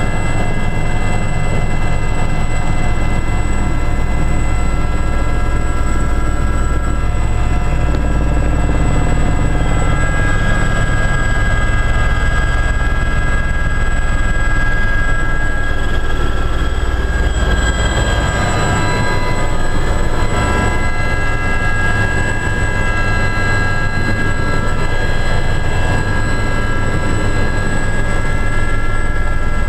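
Aérospatiale Gazelle helicopter in flight, heard from inside the cabin: a constant low rotor drone under the steady whine of its Astazou turboshaft and gearbox.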